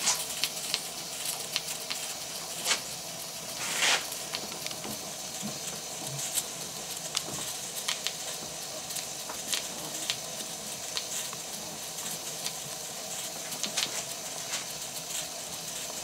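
Small Stuart oscillating steam engine running on live steam: a steady hiss of steam with irregular spitting ticks and pops, and a louder hiss about four seconds in.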